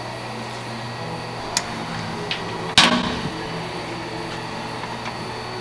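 Hands working on wiring under a truck's frame: a couple of sharp clicks and then one louder knock with a short ring, a little under three seconds in, over a steady low hum.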